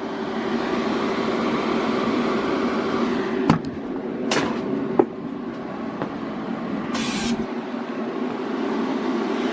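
Argon shielding gas hissing steadily through a TIG welder's gas line while the flow is set, reading about 40 CFH, far too high. Under it runs a steady machine hum. A few sharp clicks come around the middle, and a short, sharper hiss comes near the end.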